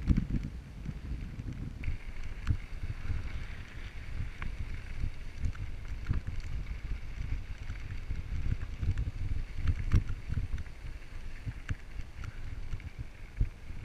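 Wind buffeting the microphone over a steady low rumble of a camera jostled while moving along a dirt trail, with irregular knocks and a few sharp clicks, the loudest about ten seconds in.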